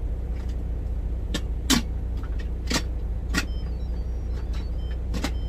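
About five sharp clinks and knocks, the loudest about a second and a half in, as foil-wrapped potatoes are set onto the metal trivet rack inside an Instant Pot's steel inner pot, over a steady low hum.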